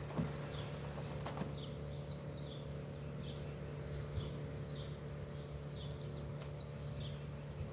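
A bird chirping over and over in short falling chirps, about once or twice a second, over a steady low hum. A few soft knocks come from the soil and potatoes being handled.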